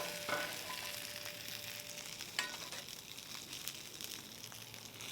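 Potato crowns and bratwurst sizzling on a Blackstone flat-top griddle over high heat: a steady frying hiss, with a couple of faint clicks.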